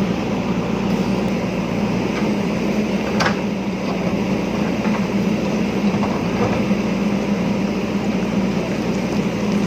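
JCB backhoe loader's diesel engine running steadily under work, with one short knock about three seconds in.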